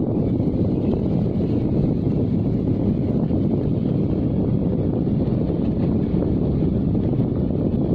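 Steady low rumble of a car in motion at slow speed, heard from inside the cabin.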